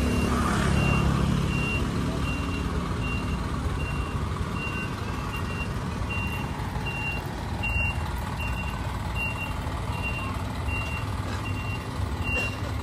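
Truck's electronic warning beeper sounding short high beeps about one and a half times a second, over the low rumble of the truck's engine as it rolls slowly.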